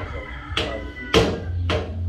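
Metal tool knocking on a steel window grill, three sharp blows about half a second apart, each ringing briefly; the second is the loudest.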